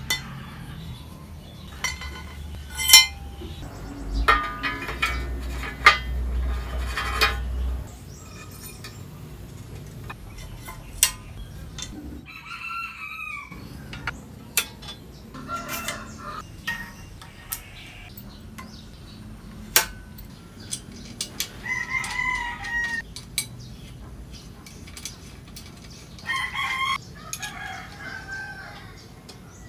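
Metal bicycle headset parts clinking and scraping as the fork's steerer tube is seated in the head tube and spacers and a stem are slid onto it: a string of sharp clicks and a rattling stretch early on. Birds call in the background several times in the second half.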